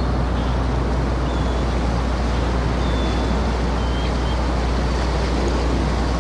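A steady rushing noise with a low hum beneath it, and a few faint short chirps over it.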